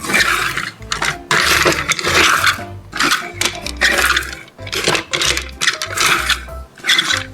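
Toys and their packaging being handled, with repeated rustles and light clinks about every half second to second, over background music with a low bass line.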